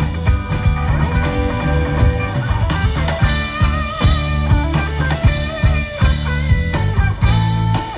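A live rock band playing: electric guitars over bass and a drum kit keeping a steady beat.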